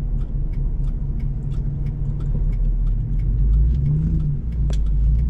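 Engine and road rumble inside a moving vehicle's cabin, with the engine note rising briefly about four seconds in.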